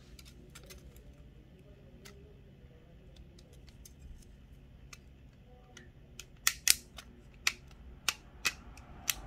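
Sharp clicks and taps of the small plastic parts of a DJI Mini 2 drone being handled and fitted together by hand. A few faint ones come at first, then about six louder clicks near the end, over a low steady hum.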